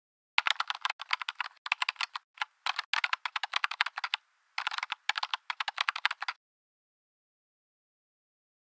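Typing sound effect: quick runs of keystroke clicks with short pauses between them, stopping abruptly about two and a half seconds before the end.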